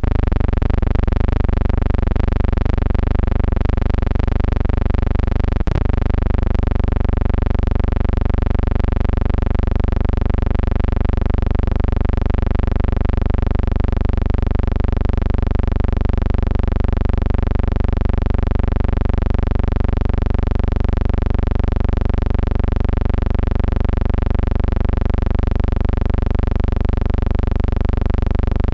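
A loud, steady droning hum of fixed tones that never changes pitch, with a slight regular pulsing in loudness. A single click comes about six seconds in.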